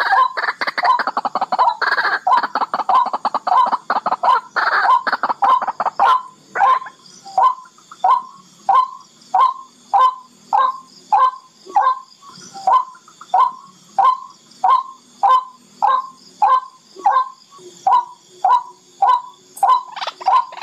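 Barred rail (tikling) calling: a fast run of closely spaced notes for the first six seconds or so, then single notes repeated steadily, about three every two seconds, each falling slightly in pitch.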